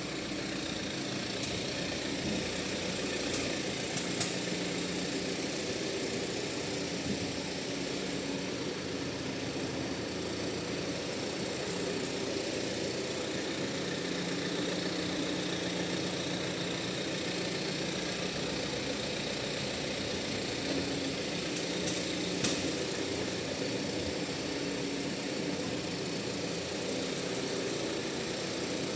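Alfa Romeo Stelvio 2.2 diesel engine running steadily at idle, with a few separate sharp clacks as the car creeps forward on full left lock. The owner cured this clacking by fitting 5 mm wheel spacers, with copper grease on the hub face.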